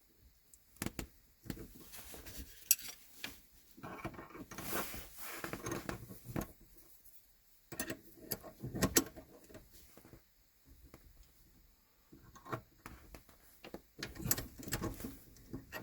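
Hand tools working on the gear-shift cable linkage: irregular metal clicks, knocks and scraping as the lock nut on the adjusting rod is tightened, busiest in two stretches in the middle.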